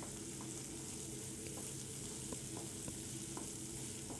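Tomato masala frying gently in mustard oil in a kadai, a soft steady sizzle, while a spatula stirs it with scattered light scrapes and taps against the pan. The tomatoes are cooked down, with the oil separating.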